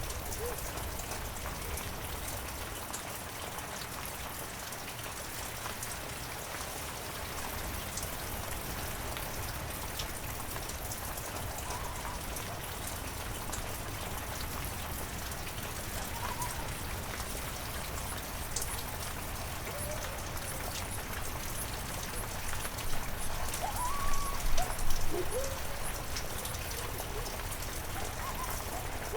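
Heavy rain falling steadily, with individual drops ticking through the constant hiss. About three-quarters of the way through there is a louder patch of sound with a few short, wavering pitched calls.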